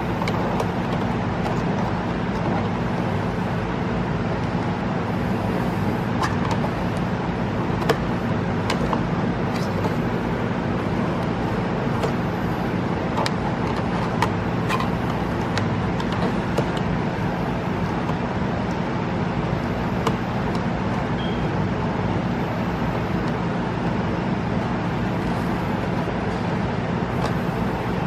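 Steady low machine hum over an even hiss, with a few faint clicks.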